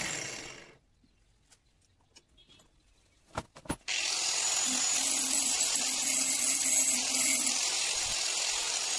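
Handheld angle grinder winding down and going quiet. Two sharp knocks follow, then the grinder runs again at full speed from about four seconds in, a steady high whine.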